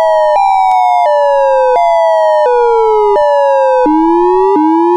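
Synthesized alert siren for a mock emergency broadcast: a steady high tone under a second, buzzier tone that shifts in short steps about every 0.7 seconds. The buzzy tone falls in pitch step by step, then turns and climbs after about four seconds.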